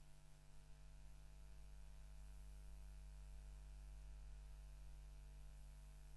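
Near silence: a faint steady electrical hum with light hiss.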